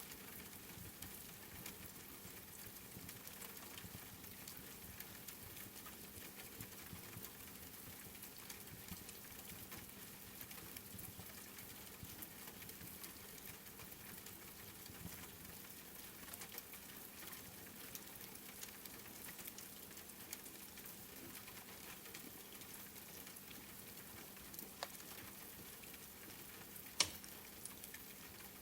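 Steady patter of rain mixed with the small crackles of a wood fire, with a sharper pop from the fire near the end.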